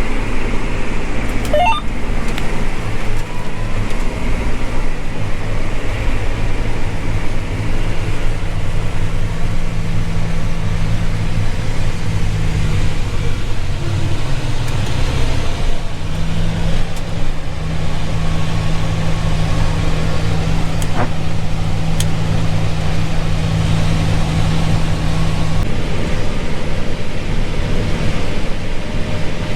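Corn harvest machinery running steadily with a low engine and drivetrain hum. The pitch of the hum shifts a little about halfway through and again near the end.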